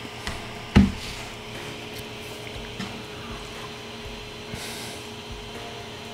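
Creality Ender 3 3D printer humming steadily, its cooling fans running while the nozzle heats to 200 °C for loading PLA. A single dull thump sounds about a second in.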